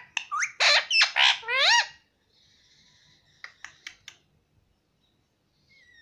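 Indian ringneck parakeet giving a quick run of loud squawking calls, each swooping up and down in pitch, for about the first two seconds. Then come soft chatter and a few short clicks, and near the end a wavering whistled note that drifts down.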